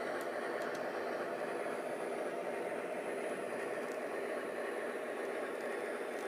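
O-gauge model diesel locomotive rolling slowly off the turntable bridge onto a spur track, with a steady running sound from the engine. A few light clicks come about half a second in.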